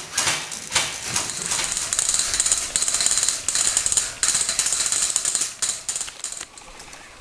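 Airsoft guns firing: a few single shots, then long rapid full-auto bursts with short breaks, stopping suddenly about six seconds in.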